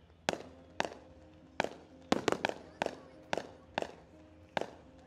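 Fireworks bursting in a rapid series of sharp bangs, about two a second, each trailing off briefly, with a quick cluster of four about two seconds in.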